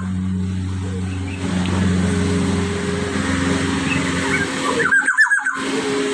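Black-naped oriole calling once about five seconds in, a quick run of fluty downward-sliding notes, over a steady low engine-like hum.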